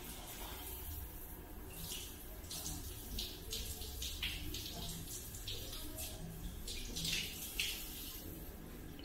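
Water from a handheld shower splashing in uneven spurts.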